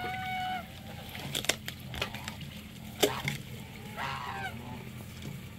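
A goose honking twice: a short flat honk at the start and a falling honk about four seconds in. Several sharp knocks fall between the honks, the loudest about three seconds in.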